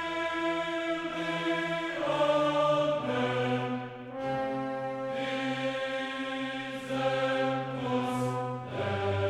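Music of sustained choir-like voices holding long chords that change every second or two.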